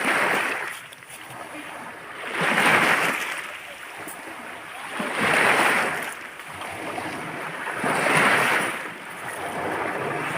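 Waves washing up on a beach, four swells of surf rising and falling about every two and a half to three seconds.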